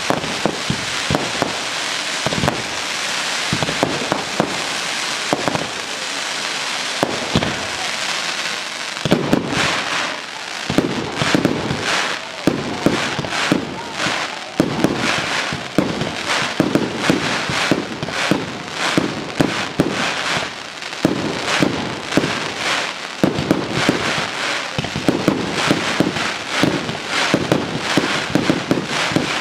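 Fireworks display: a dense, steady hiss of fountains and crackling effects for about the first nine seconds, then a fast barrage of sharp bangs and cracks from bursting shells.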